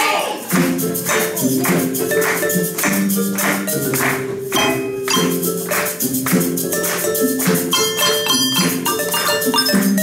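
Handbell choir playing a rhythmic piece: sustained, ringing bell notes, many struck with mallets on the table, over a quick, regular percussion beat.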